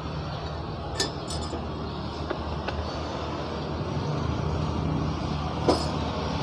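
A spoon clinking a few sharp times against the vessel as honey is spooned into the strained herbal drink, over a steady low hum.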